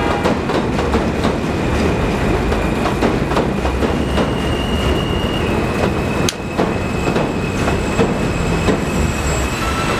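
New York City Subway R160A train running along the elevated track: a steady rumble with the clickety-clack of wheels over rail joints and a high steady whine. There is a sharp click about six seconds in.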